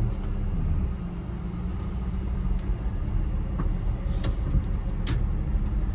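Kei truck's engine and road noise heard from inside the cab while driving, a steady low drone. A few light clicks come through in the second half.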